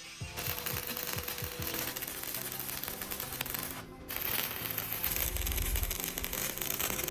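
Steady, harsh metal-grinding noise from a power tool working steel, breaking off briefly about four seconds in and then going on louder, over quiet background music.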